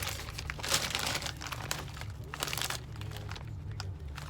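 Crinkling and rustling of a foil Lay's chip bag as it is handled, dense for about three seconds and then down to a few faint crackles.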